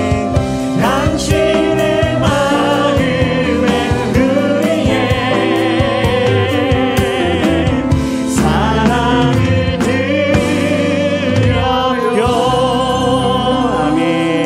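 A group of men and women singing a Korean praise song together over instrumental accompaniment, with long held notes that waver in vibrato.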